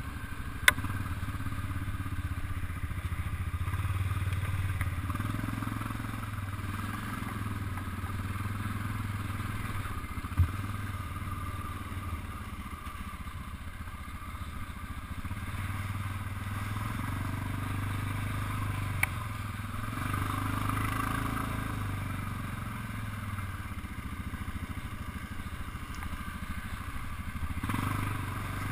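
Honda off-road vehicle engine running at a low, steady trail pace with a low drone, along with rattling and scraping from the machine over rough ground. There is a sharp click near the start, a single knock about ten seconds in and another click a little past the middle.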